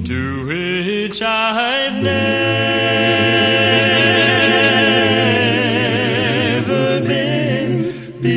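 A cappella gospel quartet singing without instruments. The voices slide up into a long held chord with vibrato about two seconds in, and release it near the end.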